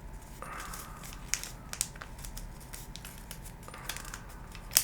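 Sheet of thin kami origami paper being folded and creased by hand: soft rustles and crinkles with scattered sharp crackling clicks, the sharpest near the end.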